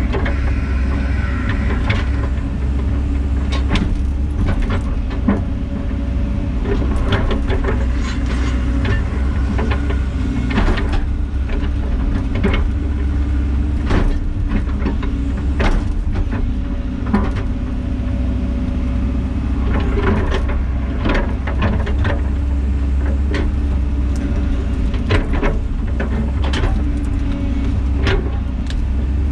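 Diesel engine of heavy earthmoving equipment running steadily, with frequent irregular metallic clanks and knocks from the machine working.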